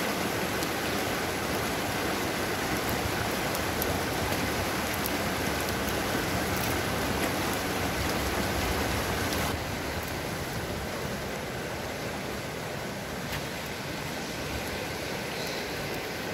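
Steady rush of white water from a rocky river's rapids. About nine and a half seconds in, it drops to a somewhat quieter, steady rush.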